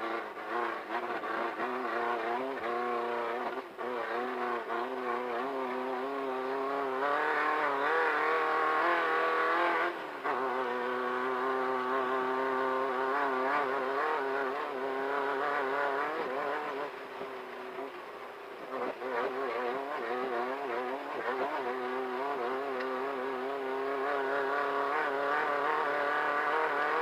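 Class 1500 desert race car's engine running hard, its revs rising and falling with throttle and gear changes. The revs climb to a peak and drop sharply about ten seconds in, and dip again briefly around eighteen seconds. There are a few knocks in the first few seconds.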